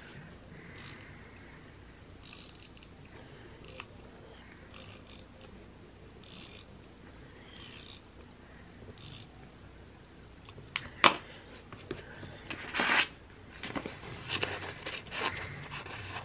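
Tape runner drawn along the edge of a planner page in about seven short, soft rasping strokes. In the last few seconds there is a sharp click and then the rustle of sticker sheets being handled.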